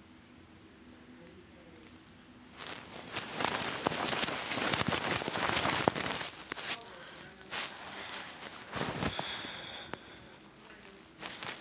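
Rustling, crackling handling noise, as from the recording phone being moved and rubbed close over shag carpet. It sets in suddenly about two and a half seconds in and is loudest in the middle.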